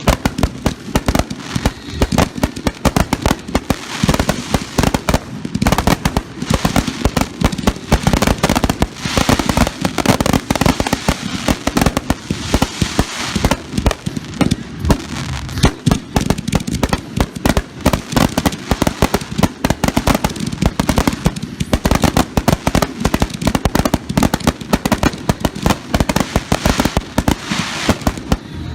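Fireworks finale barrage: a dense, continuous run of aerial shell and cake breaks, many loud reports a second overlapping with crackle.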